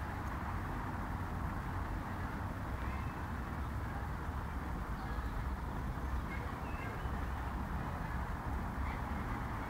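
Steady outdoor background noise: a low rumble with a hiss over it, and a few faint short high chirps about three, six and nine seconds in.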